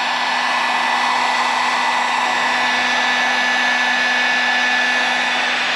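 Electric heat gun blowing hot air steadily at a soldered wire splice: a constant rush of air with a low hum and a faint high whine from its fan motor.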